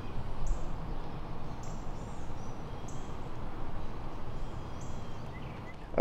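Steady hum of many honeybees from an open hive and a bee-covered frame; the colony has no queen.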